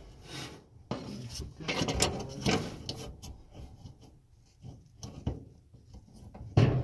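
Irregular clicks, knocks and scraping of parts being handled and fitted inside a Samsung dryer during an idler pulley replacement, with a sharp knock near the end.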